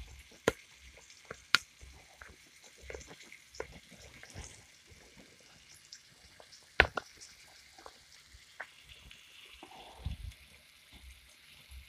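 Flour-coated pork chop frying in oil in a stainless-steel skillet: a faint sizzle with scattered sharp pops and spatters, the loudest about seven seconds in.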